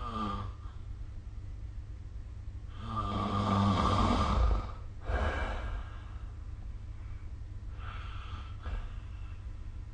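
A sleeping person snoring. A loud snore comes about three seconds in and lasts nearly two seconds, followed by a shorter, noisier breath; a fainter breath comes near the end, all over a steady low hum.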